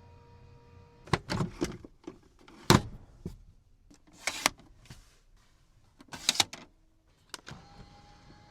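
Powered body mechanism of a Mercedes SL55 AMG: a steady motor hum stops about a second in, followed by a run of clunks and short whirring bursts, and a new steady motor hum starts near the end.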